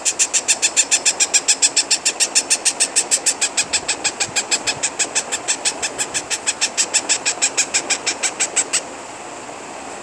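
Rapid, rhythmic, high-pitched begging chirps of a hand-fed newly hatched parrot chick, about six a second. The chirping stops about a second before the end, leaving only a steady hiss.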